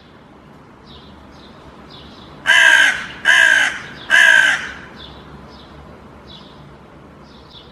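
Hooded crow cawing three times in quick succession, harsh calls a little under a second apart, over faint, repeated high chirps of small birds.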